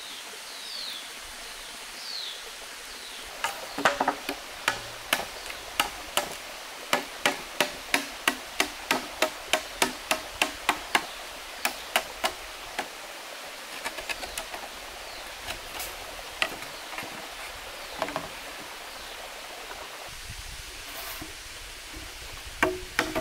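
Machete chopping into a green bamboo pole: a quick run of sharp knocks, about three a second, then slower scattered strikes, over the steady rush of a nearby waterfall.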